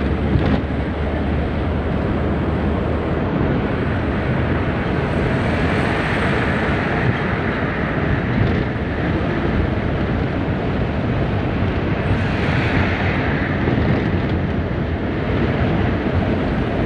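Engine and road noise inside a bus cabin at highway speed: a steady low rumble with a hiss that swells twice.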